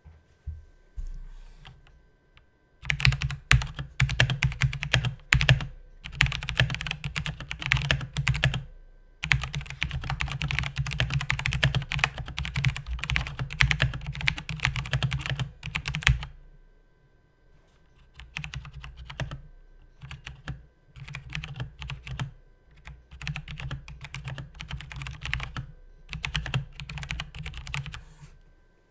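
Razer BlackWidow Ultimate Stealth 2014 mechanical keyboard with Razer Orange switches being typed on. A few single key presses are followed by fast, heavy hammering of the keys, with a short break about nine seconds in. Lighter, more spread-out typing makes up the last ten seconds or so.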